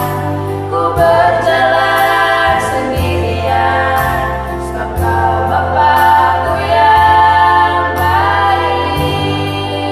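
Children's choir singing a Christian praise song in harmony, over low held bass notes that change every second or two.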